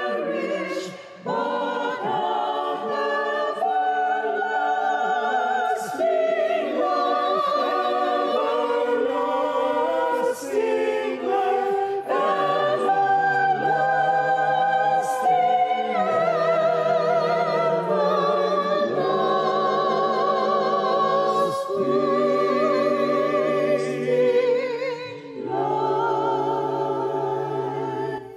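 A choir singing a slow worship song, the voices held in long phrases with vibrato and short breaks between lines; the singing fades out at the very end.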